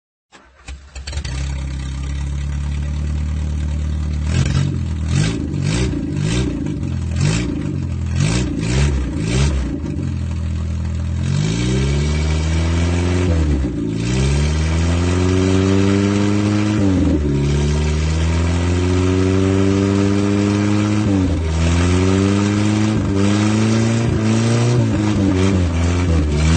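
Audi 80 engine running through a broken exhaust pipe. It idles, is blipped several times in quick revs, then pulls away with the pitch climbing steadily and dropping back sharply at each of several gear changes.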